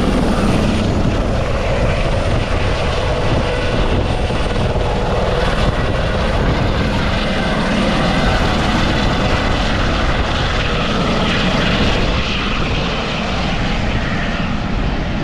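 Helicopter taking off: loud, steady rotor and turbine engine noise, easing off a little near the end as it climbs away.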